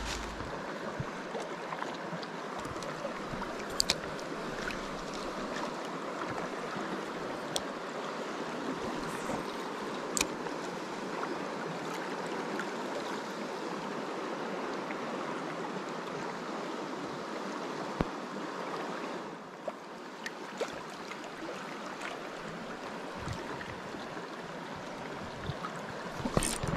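Shallow river current running over a rocky riffle, a steady rush of water, with a few brief sharp clicks scattered through it and a slight drop in level about two-thirds of the way through.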